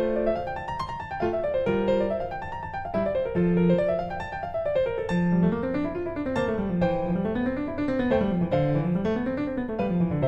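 Background music: a piano-like keyboard playing fast repeating up-and-down arpeggios over a moving bass line.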